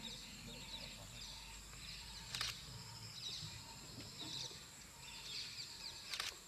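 Outdoor wildlife ambience of birds calling, short falling chirps repeated throughout, over a steady faint high whine. Two sharp clicks cut in, about two and a half seconds in and again near the end.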